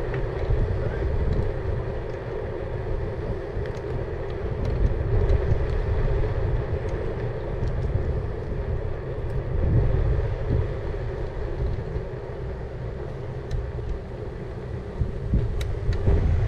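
Riding noise from an e-bike rolling along a tarmac road: uneven low wind rumble on the microphone and tyre noise, under a steady mid-pitched hum, with a few light ticks.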